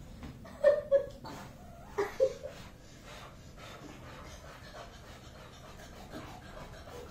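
Young German Shepherd dog panting, with two brief, louder pitched sounds about a second and two seconds in.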